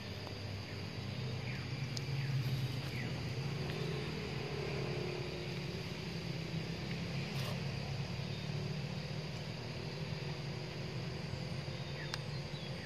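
A steady low engine hum, loudest a couple of seconds in, over a constant high-pitched insect drone, with a few faint short chirps.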